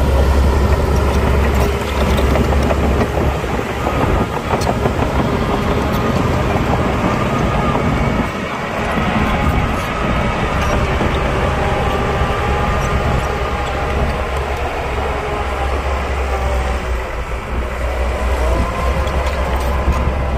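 Heavy diesel earth-moving machinery running steadily, with a strong deep engine hum and a few light metallic knocks.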